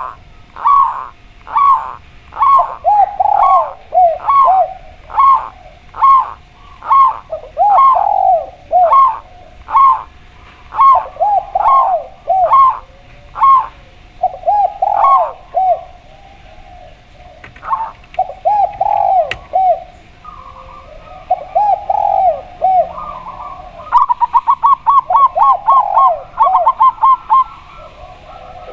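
A spotted dove and a zebra dove cooing together: a higher, evenly spaced series of short coos runs over lower, rolling groups of coos, with gaps between the low groups. About four-fifths of the way through, the higher voice breaks into a fast rapid-fire run of notes.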